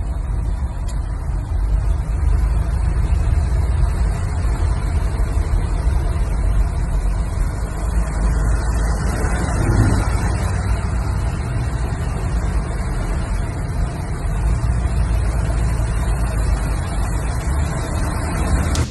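Monsoon storm noise: a steady, heavy low rumble with a hiss of rain over it.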